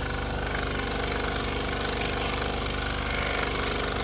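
Scroll saw running steadily, its reciprocating blade cutting through a thick block of wood.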